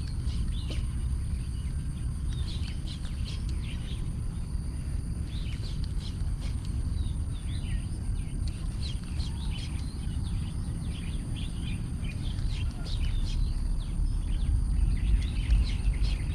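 Birds chirping in short calls over a steady low outdoor rumble.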